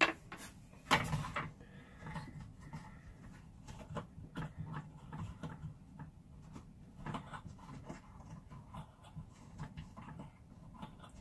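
Plastic wing-nut bolt being unscrewed from under a toilet seat by hand: a sharp click about a second in, then irregular faint clicks of plastic threads and handling.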